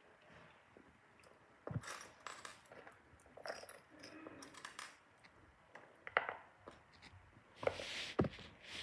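Jewelry being handled and set into a tiered fabric-covered jewelry box: scattered light clicks, small knocks and brief scrapes at irregular intervals, like beads and trays tapping together.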